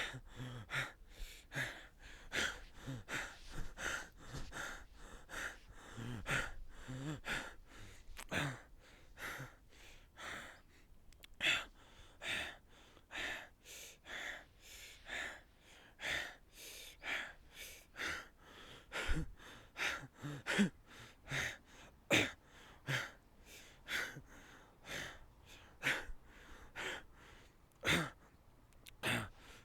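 A man gasping for air as if suffocating: rapid, ragged in-and-out breaths, about two a second, going on without a break.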